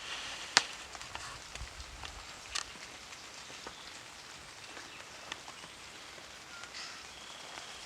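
Quiet outdoor field ambience with scattered light ticks and crackles, a single sharp click about half a second in and a smaller one at around two and a half seconds.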